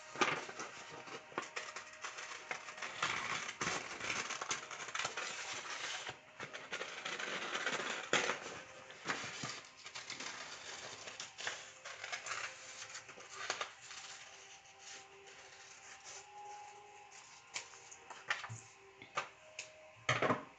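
Scissors snipping through a sheet of paper with repeated cuts and paper rustling as a circle is cut out; the cutting dies down about two-thirds of the way through, leaving quieter paper handling.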